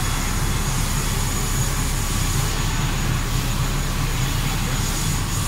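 Steady low engine drone on an airport apron, with a thin high whine running over it.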